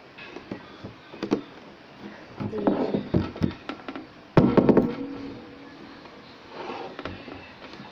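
Knocks and handling noise as a plastic pipe is moved and bumped against a tabletop while a cord is tied around it. The loudest clatter comes about four and a half seconds in.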